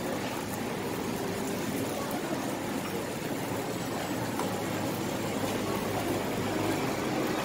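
Steady hiss of meat skewers sizzling on a street-stall grill, over a low background hum.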